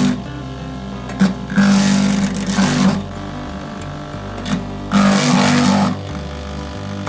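Motor-driven wooden fruit slicer running with a steady hum while its blades chop green fruit fed into the chute. There are two loud chopping bursts of about a second each, beginning about 1.5 s and 5 s in, with shorter chops between.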